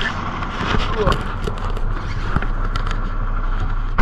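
Diesel semi-truck engine idling steadily, with scattered light clicks and knocks over it.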